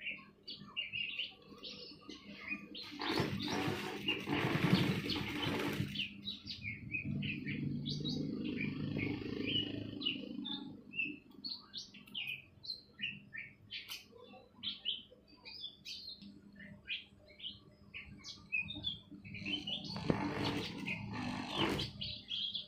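A sewing machine stitching in runs: the loudest about three to six seconds in and again near the end, with a quieter run between. Small birds chirp throughout.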